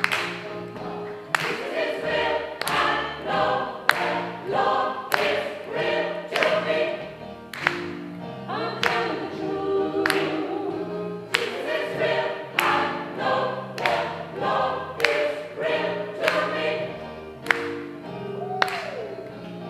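Gospel choir singing with accompaniment, a sharp beat striking about every second and a quarter.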